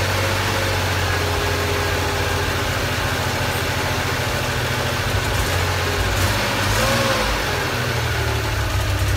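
1980 Porsche 911SC's freshly rebuilt air-cooled 3.0-litre flat-six running steadily near idle on its first run after the rebuild.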